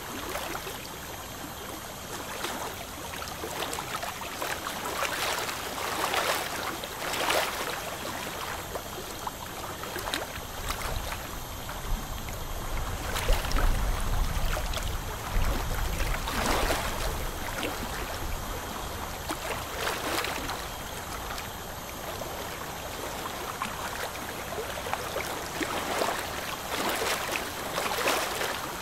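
Steady watery hiss and gurgle of dental suction, with short scrapes now and then as a hand scaler works black smoker's tartar off the lower front teeth.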